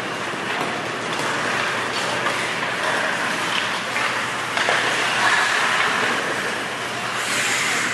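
Ice hockey play: a steady rush of skates on the ice, with a few short clacks of sticks and puck.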